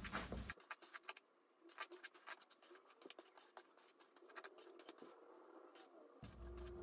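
Near silence with faint, scattered ticks and light scratchy rustles.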